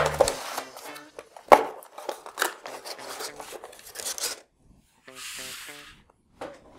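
Cardboard packaging being handled: an inner cardboard box is lifted out and set aside, with rubbing, scraping and knocks, the sharpest knock about a second and a half in. Near the end comes a short scrape of paper sliding on the table.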